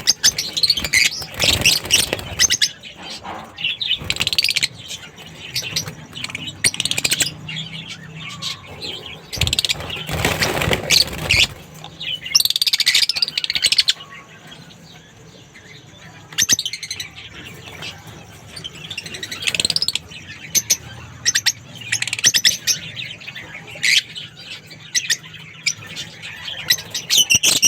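Lovebirds chirping in many short, high-pitched calls, with a brief rushing noise about ten seconds in.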